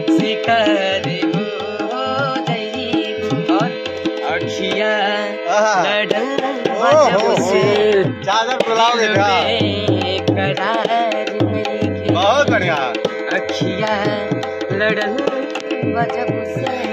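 Instrumental break in a Bhojpuri song: a quick hand-drum rhythm under steady held tones and a melodic line that rises and falls.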